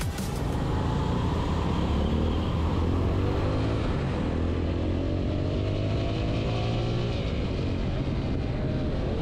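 Motorcycle engine running under way with steady road and wind noise; the engine note climbs from about four to seven seconds in as it accelerates. It stops abruptly at the end.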